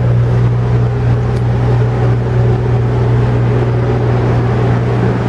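Air conditioner running loudly and steadily: a constant low hum with an even rush of air over it.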